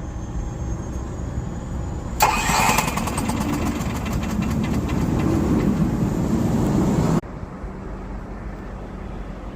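RV generator's small gasoline engine cranking and starting about two seconds in with a rapid clatter, then running steadily, its gummed-up carburetor just cleaned. The sound cuts off suddenly about seven seconds in, leaving a steady low rumble.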